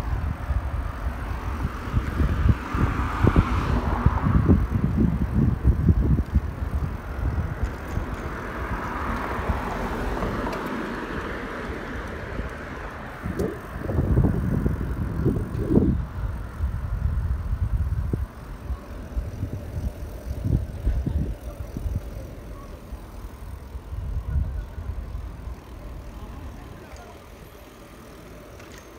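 Wind buffeting a phone's microphone on a moving bicycle, a gusty rumble, with road traffic swelling past twice in the first half. The rumble dies down over the last few seconds.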